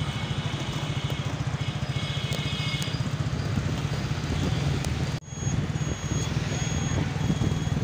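Motorcycle engine running steadily under way, heard from the pillion seat with road noise. The sound breaks off for a moment about five seconds in. After that a high beep repeats at a steady on-off rhythm over the engine.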